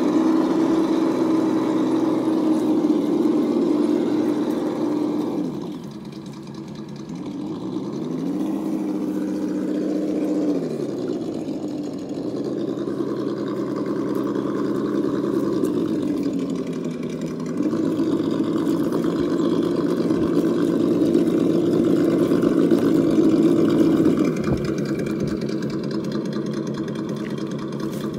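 Traxxas TRX-4 Defender RC crawler's electric motor and drivetrain whining as it crawls, the pitch rising and falling with the throttle: it drops away about six seconds in and climbs back a couple of seconds later.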